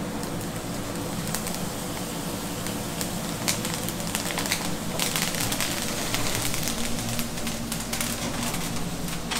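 A large T-bone steak searing in a hot pan, fat and butter sizzling and spitting with dense irregular crackles that pick up about three seconds in, over the steady hum of a kitchen extractor.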